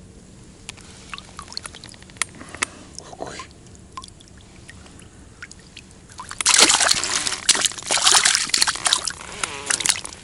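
Shallow water sloshing and splashing as a freshly caught crucian carp is dipped and handled in it, loud from about six seconds in. Before that, only faint drips and small clicks.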